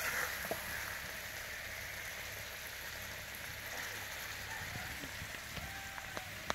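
Steady hiss of curry simmering in a metal kadai over a wood fire, with a few sharp clicks of a metal spatula against the pan, the loudest right at the start.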